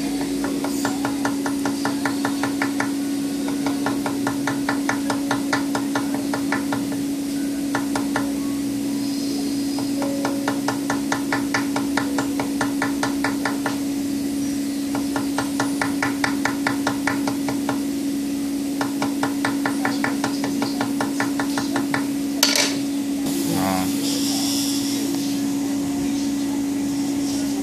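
Small hammer tapping rapidly and lightly on a thin 1 mm sheathed wire laid on a metal bench top, to crush the sheath for stripping. The taps come in runs of a few seconds, several a second, with short pauses between runs. Near the end the hammer is set down with one loud clank, followed by a few seconds of rustling, and a steady low hum runs under it all.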